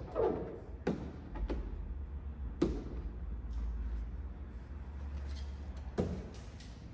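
A few sharp knocks and taps from a window-tint squeegee and hands working against the rear hatch glass, over a low steady hum.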